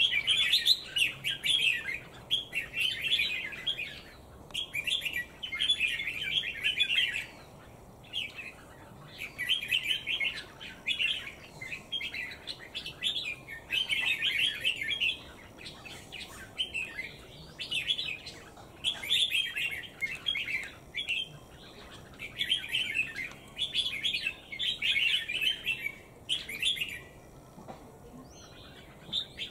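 A bird singing in phrases of rapid chirps, each phrase lasting one to three seconds, repeated over and over with short pauses between.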